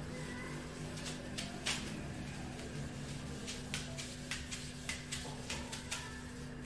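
Whiteboard duster wiping marker off the board in a series of short, quick strokes, over a steady low hum.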